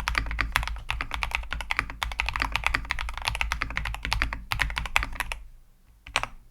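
Fast typing on a Keychron V5 mechanical keyboard with Wuque Studios Aurora Clear switches and OSA dye-sublimated keycaps, a dense run of key clacks. It pauses about five and a half seconds in, then comes a last short burst of keystrokes.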